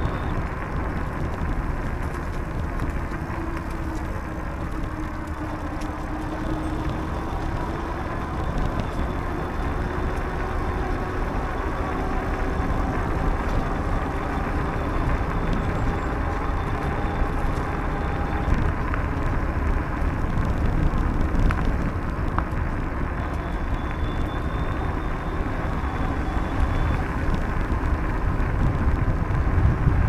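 Steady rumble of a bicycle rolling along a paved path, with wind on the microphone, growing a little louder near the end.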